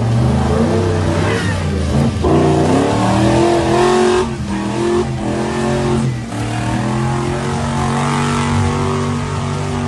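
Off-road 4x4's engine revving hard, its pitch rising and falling several times, with brief dips about four and six seconds in before settling to a steadier note.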